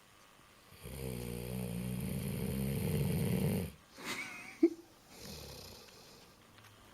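A 15-year-old dog snoring in its sleep: one long snore of about three seconds, then a shorter, higher sound ending in a sharp click, and a fainter breath after it.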